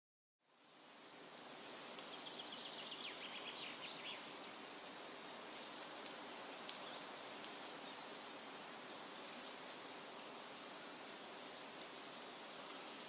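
Faint steady ambient hiss that fades in over the first couple of seconds after a moment of silence, with scattered faint high chirps, most of them about two to four seconds in.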